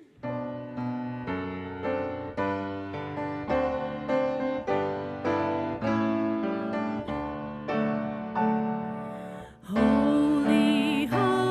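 Grand piano playing a hymn introduction, notes and chords struck a few times a second, each ringing out. Just under ten seconds in, a woman's voice comes in singing the hymn over the piano.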